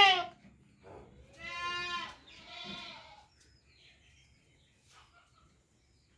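Goats bleating: the tail of a loud bleat at the start, a short call about a second in, then two more bleats around two and three seconds in, after which it falls almost quiet.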